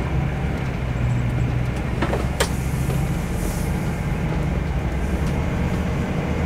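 Steady engine and road drone heard from inside a vehicle's cab while driving at highway speed, with two light clicks about two seconds in.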